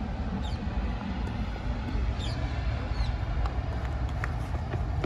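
Outdoor background: a steady low rumble, with a few faint, short, high chirps that fall in pitch.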